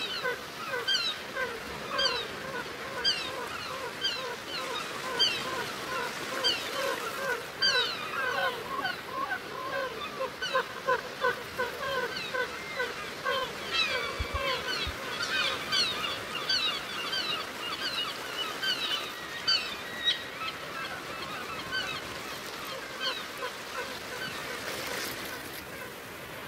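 A flock of birds calling, many short honking calls that fall in pitch and overlap densely, thinning out over the last few seconds.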